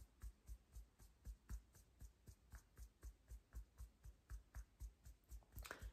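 Fingertips tapping lightly and evenly on the collarbone, about four faint taps a second: EFT tapping on the collarbone point.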